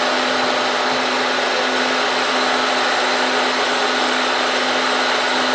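Milling machine spindle running steadily with a constant hum, driving a small end mill in a Volstro rotary milling head through a light cut in aluminum.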